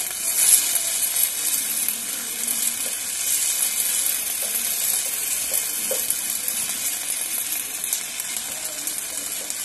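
Aerosol chain-lube spray hissing steadily through a thin extension straw as lube is laid onto the O-rings along the side of a motorcycle drive chain.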